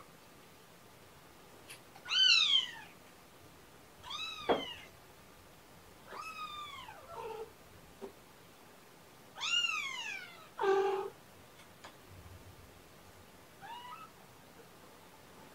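A kitten meowing repeatedly: four high-pitched cries, each rising then falling over about half a second, with a couple of shorter, lower calls between them and a faint one near the end.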